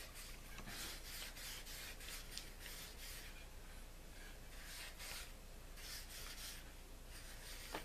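A brush scrubbing out the inside of a spincast reel's front cover: faint, repeated scratchy strokes, cleaning dirt out of the cap.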